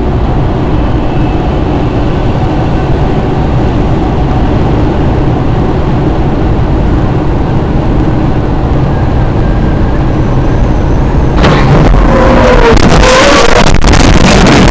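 Steady road and engine noise inside a moving car. About eleven seconds in it turns suddenly louder and rougher, with a run of sharp hits as flying debris strikes the windshield.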